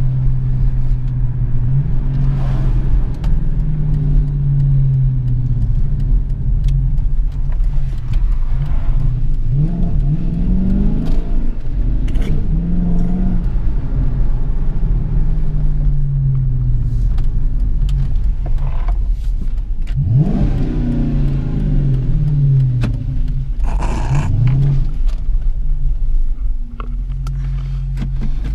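2014 Dodge Challenger R/T's 5.7-litre Hemi V8 with a new cold air intake, heard from inside the cabin while driving. The engine note rises in pitch under acceleration several times, with steadier cruising between.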